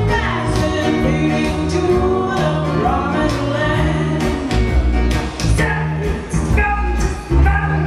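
Live band music: a woman singing lead over strummed acoustic guitars, with bass notes and drums.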